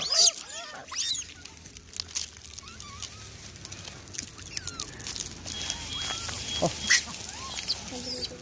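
A monkey's short, squeaky calls that rise and fall, several in quick succession in the first second or so, then a few scattered ones, with sharp clicks throughout.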